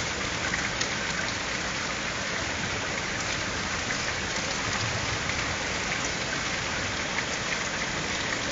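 Steady rain falling during a thunderstorm, with individual drops ticking sharply close by.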